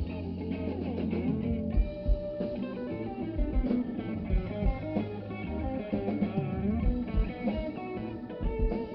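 Live blues band playing, an electric guitar picking out bending lead lines over bass and a steady drum beat.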